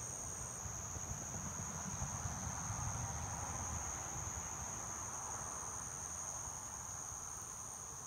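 Insects trilling steadily at a high pitch, with a low rumble beneath.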